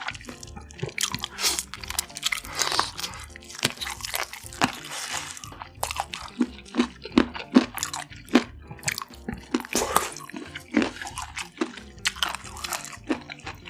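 Close-up chewing and biting of roast chicken drumstick meat: many irregular short mouth clicks and smacks, with soft background music underneath.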